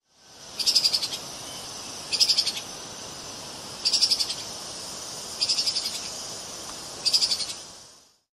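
Treeshrew (Tupaia) giving five short, rapid chattering trills, evenly spaced about a second and a half apart, over a steady high background hiss.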